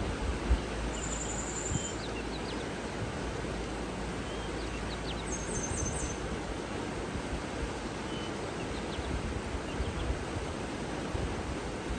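Steady rushing of water, with a few faint, high bird chirps: a short high trill about a second in and another near the middle.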